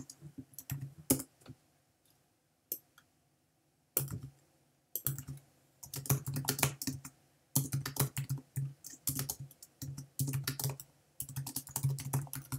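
Typing on a computer keyboard: bursts of quick keystrokes, with a lull of about two seconds after the first second.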